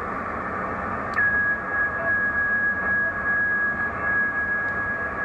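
ICOM IC-725 HF receiver hissing with band noise through its speaker. About a second in, after a click, a carrier near 10 MHz comes in as a steady high-pitched whistle, with faint pips about once a second.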